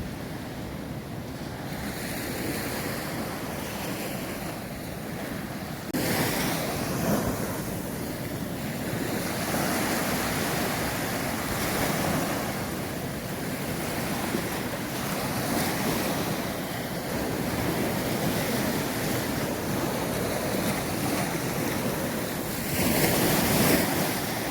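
Sea waves washing onto a sandy beach: a steady rush of surf that swells and eases, louder from about six seconds in. Wind buffets the microphone.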